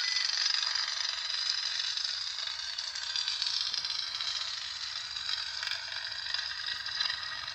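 Lightsaber sound board (Proffie 2.2) playing its idle blade hum through the hilt's small 28 mm speaker: a steady, hiss-like hum with no low end.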